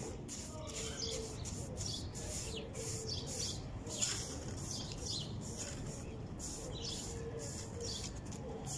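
Broom strokes sweeping wet concrete pavement, a regular run of short swishes, with birds chirping in the background.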